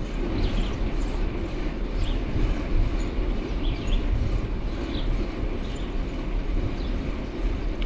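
Steady low rumble of a moving vehicle, with faint light ticks and squeaks over it.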